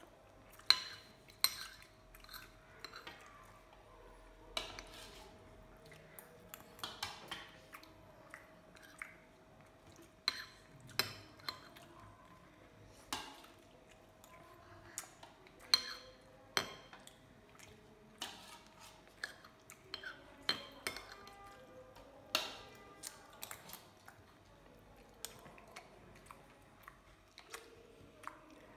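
A metal spoon clinking and scraping against a bowl while ras malai is eaten: irregular sharp clinks with pauses between, one ringing briefly about 22 seconds in. A faint steady hum runs underneath.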